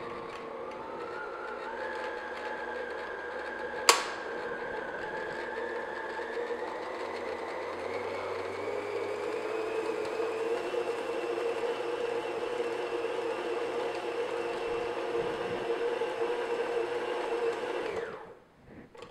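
Electric stand mixer running at low speed, its flat beater working flour into a stiff cookie dough; the motor whine rises slowly in pitch as it goes. One sharp click about four seconds in, and the mixer is switched off near the end.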